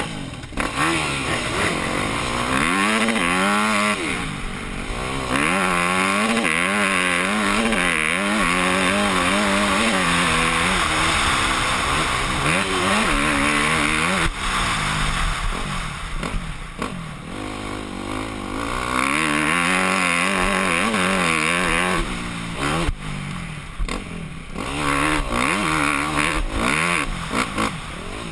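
Yamaha YZ250F four-stroke single-cylinder dirt-bike engine revving hard under acceleration, its pitch climbing and then dropping again with each gear change, easing off briefly a few times between pulls.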